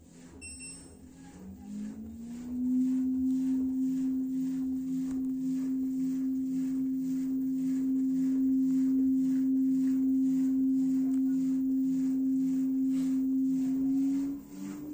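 An LG F4DV509S0E washer-dryer starting an empty spin cycle. A short beep from the control panel, then a steady low hum that rises in pitch over about a second and holds, with a faint whooshing pulse about twice a second. Near the end the hum drops and shifts to a higher pitch.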